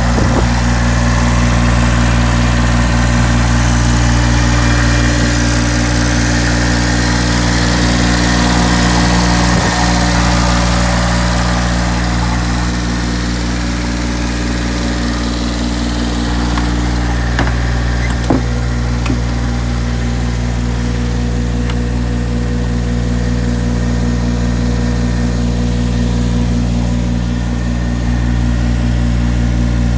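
The diesel engine of a 2013 JCB 8008 micro excavator running steadily at idle. An added higher steady tone stops about two-thirds of the way through, followed by a couple of sharp clicks.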